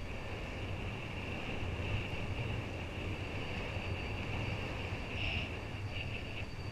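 Wind buffeting the microphone and water rushing past a hydrofoil kiteboard under way, with a steady high whine over the top that swells briefly about five seconds in.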